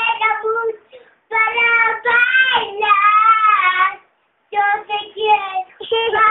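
A young girl singing unaccompanied, in sung phrases with held notes and short silent pauses between them.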